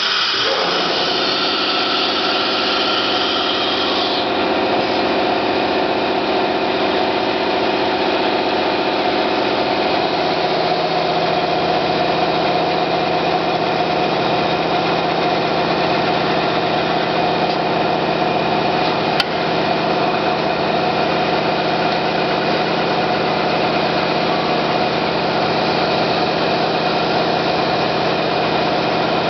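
OMNI 4-axis 1325 CNC router with a linear automatic tool changer running: a steady machine whine made of many held tones. A high hiss stops about four seconds in, and there is a single sharp click about 19 seconds in.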